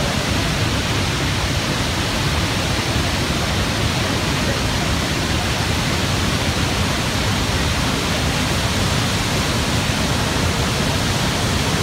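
Niagara Falls rushing close by: a loud, steady, unbroken wash of falling water.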